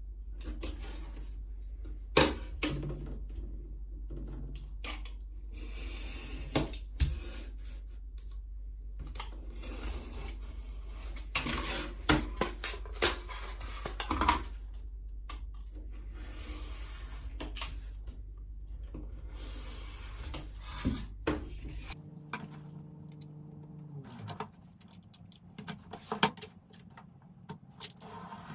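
Hard objects being handled: scattered clicks, knocks and scraping, over a steady low hum that stops abruptly about three quarters of the way through. Just after, a few low tones sound briefly, then drop away.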